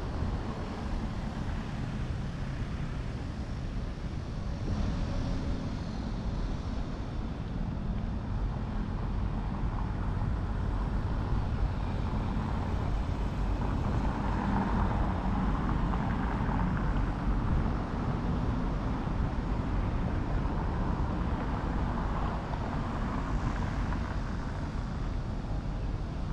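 Steady city traffic noise with a low rumble, growing louder for a few seconds around the middle.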